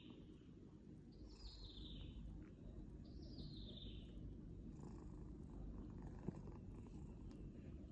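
A long-haired calico-and-white domestic cat purring softly and steadily as it sleeps. A bird gives two high, falling calls, each about a second long, in the first half, and there is a single click about six seconds in.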